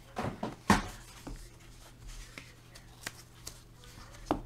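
Hands sliding trading cards in hard clear plastic holders out of a cardboard box and onto a desk mat: light rubbing with a string of sharp plastic clicks, the loudest under a second in.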